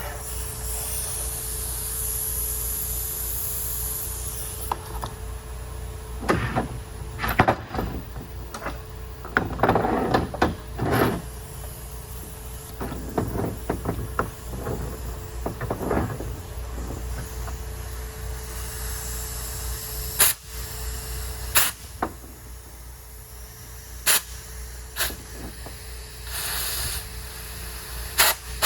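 Hands-on work on a car's brakes: short stretches of hissing and a scatter of sharp knocks and clinks from tools and metal parts, over a steady low hum.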